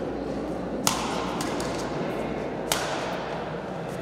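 Badminton rackets striking the shuttlecock in a rally: two sharp hits about two seconds apart, with a few fainter clicks between, over the steady noise of a sports hall.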